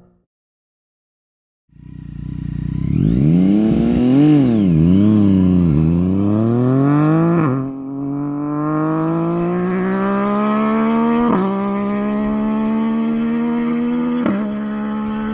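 Yamaha MT-09 three-cylinder engine through a full Akrapovič exhaust. After about two seconds of silence it fades in and revs up and down a few times, then accelerates hard through the gears. The pitch climbs steadily and drops sharply at each of three upshifts.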